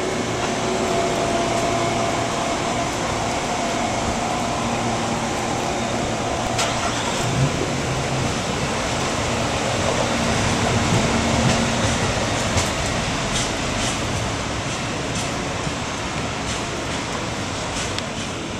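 Amtrak Northeast Regional passenger train pulling out of the station. Its wheels and running gear make a steady rumbling rush, with faint steady whining tones in the first half and scattered light clicks.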